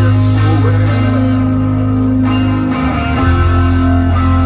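Live rock band playing electric guitar and bass over drums and cymbals, loud, heard from within an arena crowd.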